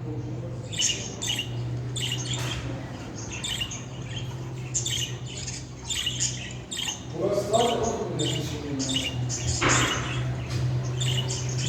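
Budgerigar chattering with rapid, repeated short chirps and squawks, and a warbling passage about two-thirds of the way through. A steady low hum runs underneath.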